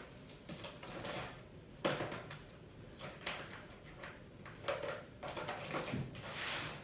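Irregular handling noises: a few light knocks and rustles as a capacitor is fetched and picked up for testing.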